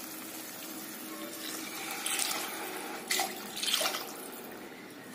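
Water poured into a steel tumbler, then tipped from the tumbler into a pressure cooker of tomato masala, in a few short splashing pours.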